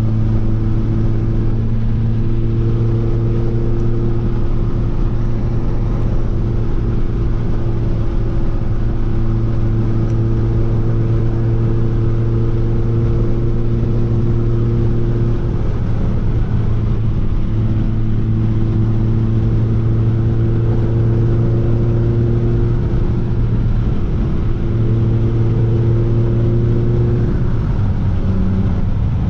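Honda CR-Z's four-cylinder engine running at nearly steady revs while driving, under a haze of road and wind noise. Its pitch shifts slightly a few times as the throttle changes.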